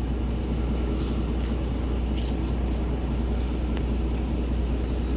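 Truck engine idling as a steady low hum, with a few faint clicks of trading cards being handled.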